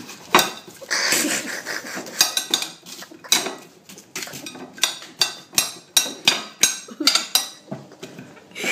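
Kitchen knife chopping an onion on a china plate: repeated sharp clacks of the blade hitting the plate, roughly three a second, with a rougher scraping stretch early on.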